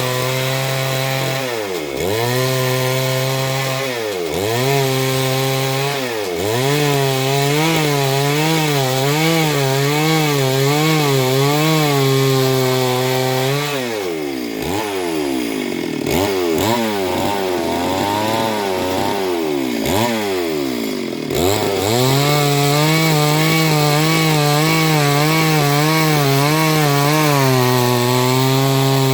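Two-stroke chainsaw running at high revs, cutting into a gamhar (Gmelina arborea) tree. The engine pitch wavers under load and dips sharply and recovers about half a dozen times. It runs lower and more unevenly for several seconds in the middle.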